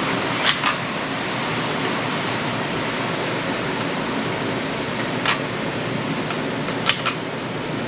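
Steady rushing air noise of an indoor shooting range's ventilation, with a few light clicks from loading magazines and handling the rifle.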